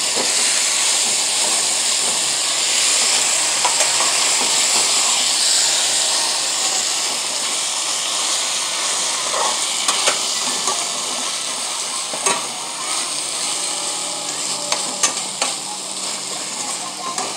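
Chicken pieces sizzling as they brown in a pot with peppers and onion, with a metal spoon scraping and clicking against the pot now and then as the pieces are turned.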